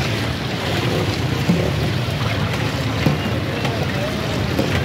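A steady, noisy din with faint voices in the background and a few short clicks and knocks.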